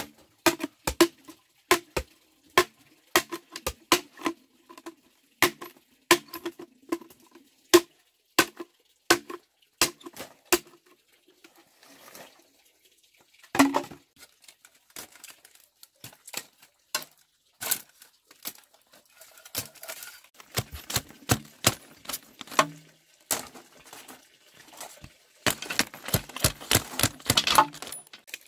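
Machete blade chopping into green bamboo poles: repeated sharp knocks about two a second with a hollow ring, then sparser strikes and a quicker run of chops near the end.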